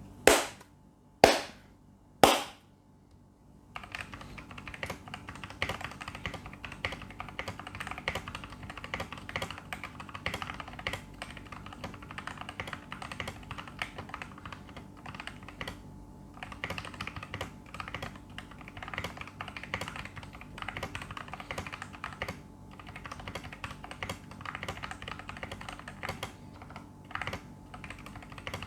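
Three loud sharp knocks, about a second apart, then steady fast typing on a mechanical keyboard with Outemu Orange tactile switches lubed with Krytox 205g0 and 105, each key bottoming out in a dense run of clicks.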